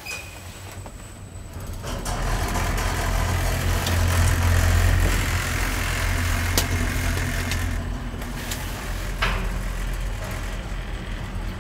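A 2017 NLM passenger lift car travelling downward, rated at 1 m/s, heard from inside the car. A low, steady hum with a faint rush swells over the first two seconds as the car picks up speed, then runs evenly, broken by two short clicks.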